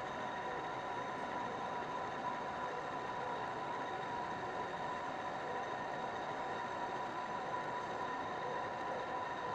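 Metal lathe running with a steady whine while a ground radius cutting tool turns rounded grooves into a spinning metal rod.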